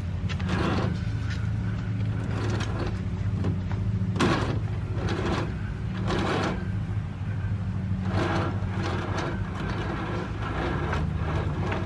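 Steel winch cable being pulled by hand off a free-spooling Warn winch drum, with irregular clicks and scrapes as the cable pays out, over a steady low hum.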